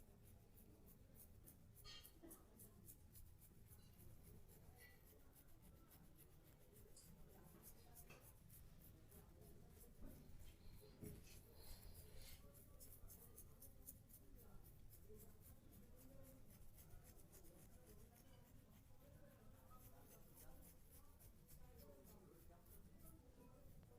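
Near silence, with faint, fast scratchy rubbing sounds.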